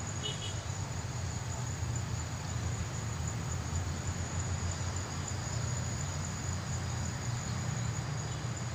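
Insects, likely crickets, chirring in one steady, continuous high-pitched tone, over a low rumble. A brief high chirp sounds shortly after the start.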